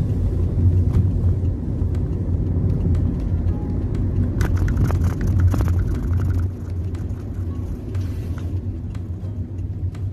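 Steady low road and engine rumble heard from inside a moving car's cabin, easing off slightly in the second half.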